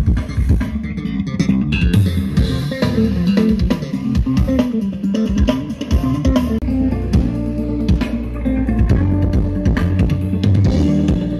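Loud music with bass guitar, guitar and drums, heavy in the bass, played through a sound system on test.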